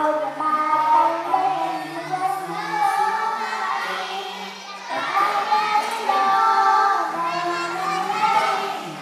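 A group of young children singing together over a backing music track, with a short lull about halfway through before the song picks up again.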